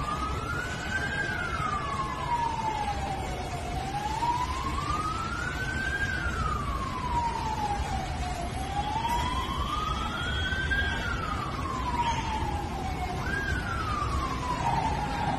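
Emergency vehicle siren sounding a slow wail, its pitch climbing and falling about every four to five seconds, over a steady low rumble. Near the end the pitch jumps straight back to the top and falls again.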